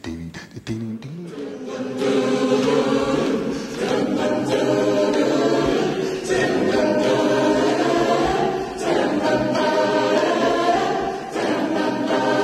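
A concert audience of many voices singing together a cappella. The singing swells in about two seconds in and goes in phrases that break off briefly and come back every few seconds.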